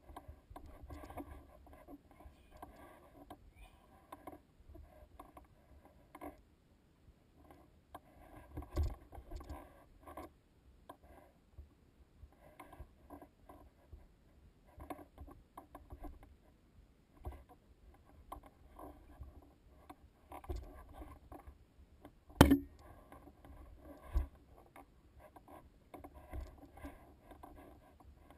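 Footsteps scraping and crunching on a rocky, gravelly trail, with gear rubbing as the wearer walks: a faint, irregular patter of small scrapes and knocks. A sharp knock a little past the middle is the loudest sound, followed by a smaller one.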